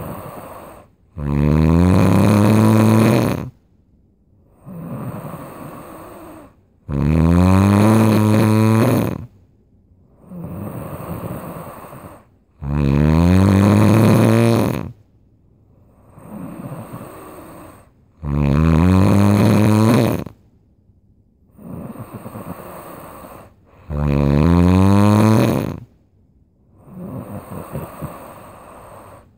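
Loud snoring in a slow, regular rhythm. Five loud, pitched snores of about two seconds each come roughly every five to six seconds, each followed by a quieter, breathier breath.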